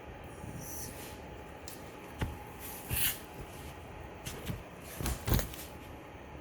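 A few scattered knocks and clicks from objects being handled and set down, with a short hiss about three seconds in.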